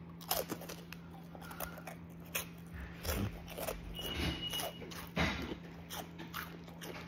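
Someone chewing Flamin' Hot Funyuns, crunchy onion-flavoured corn snack rings, with scattered irregular crisp crunches over a steady low hum.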